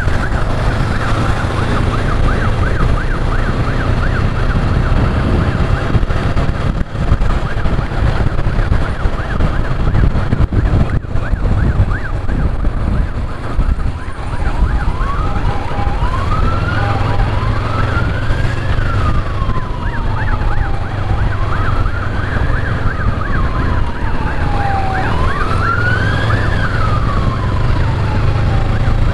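Ambulance siren sounding, first a fast warble, then from about halfway a slow wail rising and falling about every four seconds. Underneath run a Honda CB500X's parallel-twin engine and wind noise.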